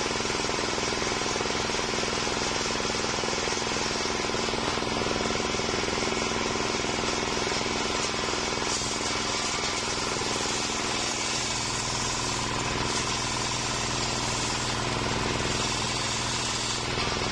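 Homemade table-mounted circular saw running steadily, its large blade spinning, and cutting into a waru log in stretches during the second half, which brightens the whine and hiss.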